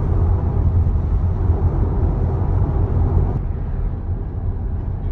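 Steady low rumble of a car driving on the road: tyre and wind noise, easing slightly about three and a half seconds in.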